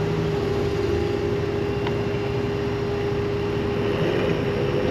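Crane truck's engine and winch running steadily, with a steady whine, as the winch takes up the new wire rope.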